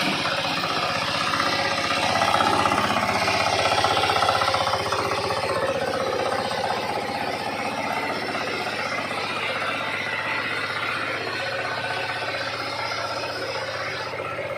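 The engine of a mini rice harvester running steadily with an even pulse. It gets a little louder for a few seconds about two seconds in, then eases slightly.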